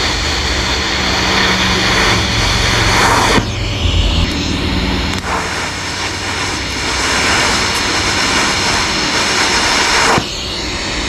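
DC lift-start TIG welding arc from a YesWelder Flux 135 Pro, a steady hiss with a low hum under it. It breaks off about three seconds in, is re-struck about a second later and cuts off sharply near the end.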